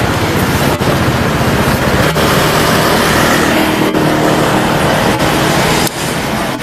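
Street traffic noise with a motor vehicle's engine running close by, steady throughout.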